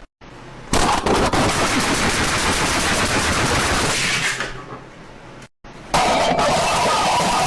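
Two loud bursts of rapid rattling noise, each several seconds long, each starting abruptly after a sudden cut.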